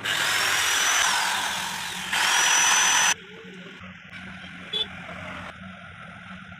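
Mixer grinder's universal motor switched on in two short bursts, each time with a whine that climbs up to speed. The first run fades about two seconds in; the second cuts off suddenly about a second later. It is being run to test the new carbon brushes and switch.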